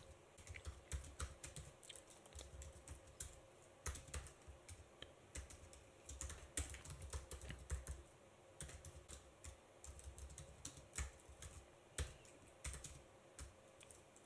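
Faint typing on a computer keyboard: irregular runs of keystroke clicks with short pauses between them.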